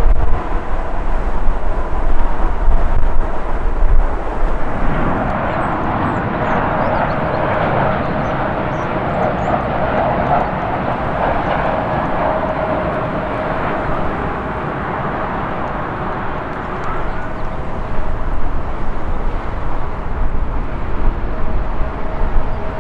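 Jet airliner passing low on landing approach: its engine noise swells to a peak in the middle and then eases off, with a steady whine running through it. Gusty wind buffets the microphone in the first few seconds.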